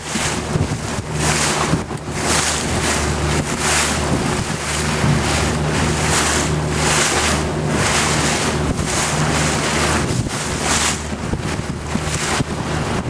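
A motorboat's engine running steadily under way, with wind buffeting the microphone in gusts about once a second and water rushing past the hull.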